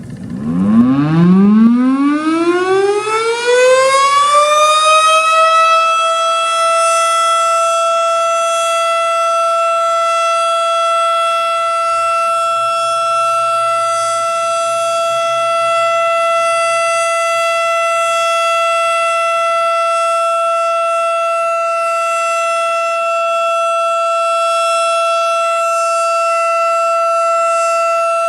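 Federal Signal STH-10 outdoor warning siren starting up on a short alert-signal test. Its single tone rises in pitch over about six seconds, then holds steady.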